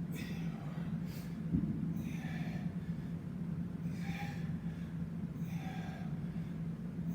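Heavy, rhythmic breathing of a man doing bodyweight squats, with a hard exhale about every two seconds, one per rep. Under it runs a steady low hum, and there is a single thump about a second and a half in.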